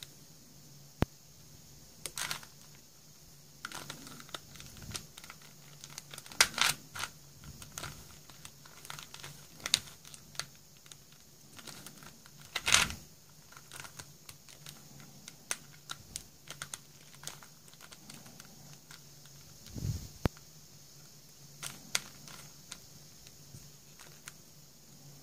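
A plastic 4-layer Super Square shape-mod twisty puzzle being turned by hand: irregular clicks and clacks as its layers are twisted and snap into place, with short rattling turns. The loudest clacks come about six and a half and about thirteen seconds in, over a faint steady hum.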